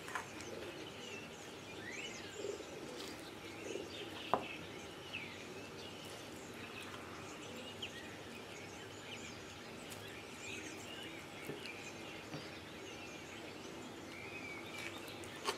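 Small birds chirping in the background, short scattered calls over a faint steady hiss, with one sharp click about four seconds in.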